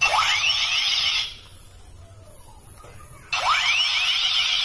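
Toy M16 rifle's electronic firing sound effect from its small speaker: rapid rising, sweeping electronic tones. One burst lasts about a second, then a second burst starts about three seconds in.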